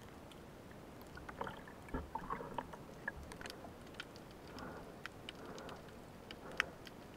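Underwater sound picked up by a speargun-mounted camera: a faint steady hiss dotted with sharp clicks, and two spells of water swishing, about one to three seconds in and again around five seconds in, as the diver handles the line with a speared fish on it. One sharper click stands out near the end.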